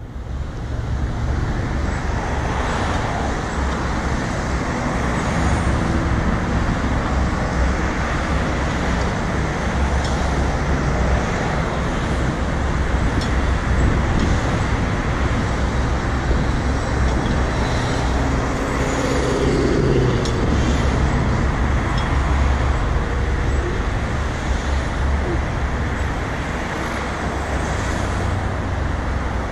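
Road traffic noise: a steady rumble of cars and other vehicles passing through an intersection.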